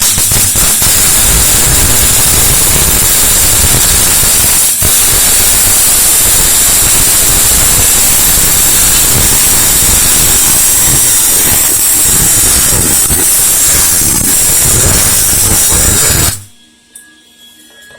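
MIG welding arc running a continuous bead on a steel T-joint: a steady, loud crackling hiss. It breaks for an instant about five seconds in and stops suddenly about sixteen seconds in. The bead is being tied into the end of an earlier weld.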